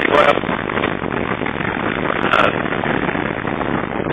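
Moving vehicle's travel noise: a steady rushing of wind and road noise, with louder swells just after the start and about two and a half seconds in.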